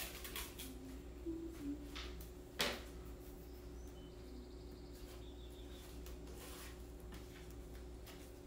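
Quiet handling of washi tape: soft rustles and small clicks as strips are peeled and pressed on, with one sharper crackle about two and a half seconds in, over a steady faint hum.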